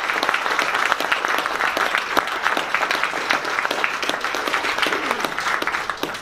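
Audience applauding: dense, steady clapping that tapers off at the very end.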